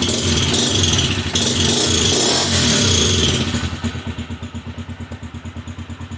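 Motorcycle engine revved for about three and a half seconds, then dropping back to an even, pulsing idle. The valve rocker clearance has just been reset, and the owner takes the settled idle as the engine running right.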